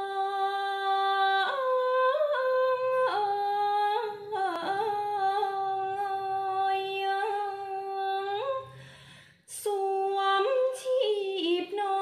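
A young woman singing khap sepha, Thai chanted verse, unaccompanied: long drawn-out held notes with slow slides and small turns between them, with no clear words. The voice breaks off briefly about nine seconds in, then goes on.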